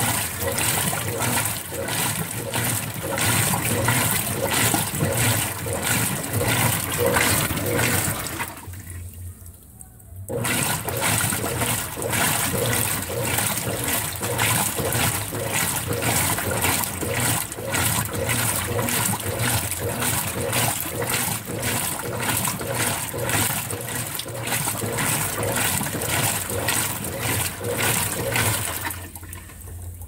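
Consul 16 kg top-load washing machine agitating its load in rinse water: rhythmic swishing and sloshing of water and clothes with each stroke. It pauses briefly about a third of the way in, resumes, and stops near the end.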